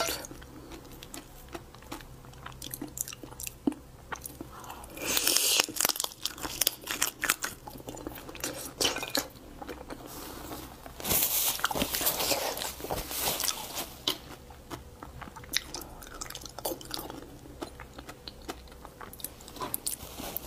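Close-miked eating of raw crab: crunching and crackling of crab shell with many sharp clicks, chewing, and longer bursts of wet sucking of the meat from the shell about five seconds in and again from about eleven to fourteen seconds.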